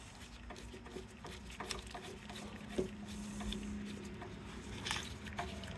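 Faint, scattered clicks and scrapes of a straight-blade screwdriver turning a screw on a Honda CT70 engine's cylinder head as it is tightened, with a low steady hum underneath.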